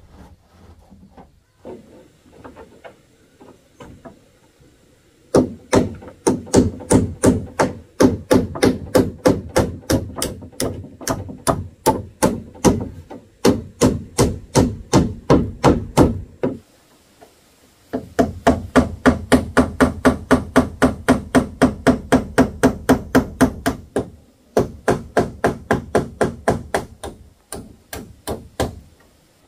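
Claw hammer driving roofing nails through corrugated fibre-cement roof sheets into the timber frame: rapid, even strikes at about four a second. The hammering starts about five seconds in and runs in three long bouts with two short pauses.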